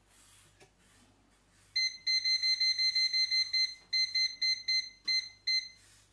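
Bread maker's control-panel beeper chirping with each button press as the menu and timer are set: short high beeps, first a quick run of about eight, then six single beeps spaced further apart.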